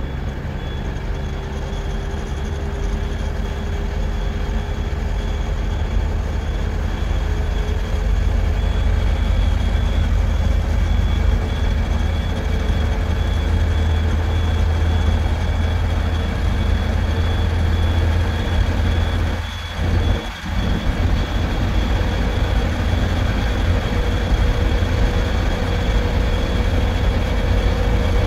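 Steady low drone of engine and road noise from a vehicle moving at highway speed, with a faint high whine held throughout. The sound drops out briefly twice about twenty seconds in.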